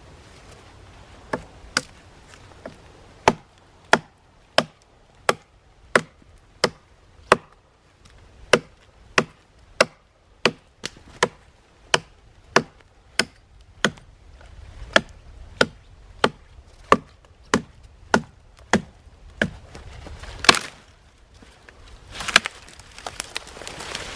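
Wood being chopped with steady, evenly spaced strokes, about one and a half a second. A louder strike comes near the end, followed by a burst of noise.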